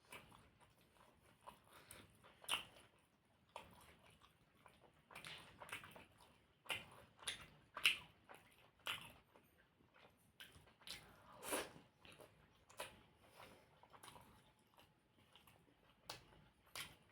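Soft chewing and wet mouth smacks of a person eating puris with spicy potato curry (alu dum), coming in irregular clicks and smacks.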